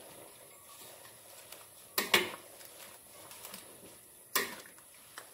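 Metal spatula clanking against the side of a large aluminium wok while turning a heap of leaves in coconut milk: two quick knocks about two seconds in and another a little after four seconds.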